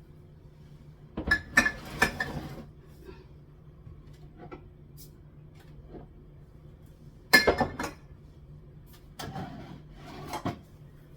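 Kitchen items being handled and set down on cupboard shelves: clusters of knocks and clinks about a second in, past the middle, and again near the end, with a few single taps between.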